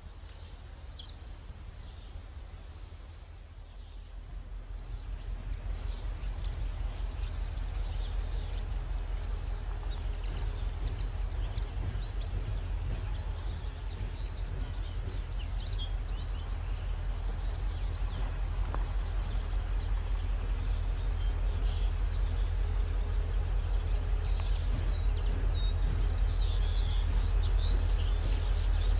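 Approaching train: a low rumble that grows steadily louder as the locomotive draws nearer, with birds chirping over it.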